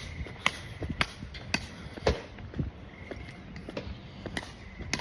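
Footsteps of a person walking at a steady pace, about two sharp steps a second.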